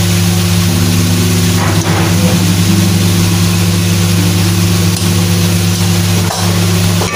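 A steady, loud, low machine hum from a running motor, unchanged throughout, with a couple of faint knocks about two seconds in and near the end.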